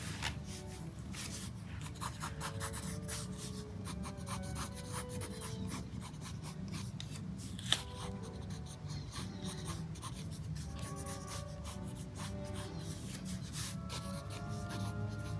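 Fine-tip ink pen scratching across sketchbook paper in many short strokes, with one sharper tick about halfway. Soft background music plays underneath.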